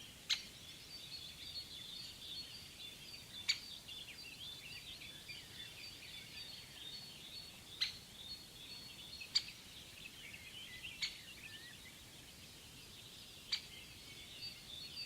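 Songbirds chirping and singing in a steady high-pitched chorus, with six sharp, very short notes standing out at irregular moments.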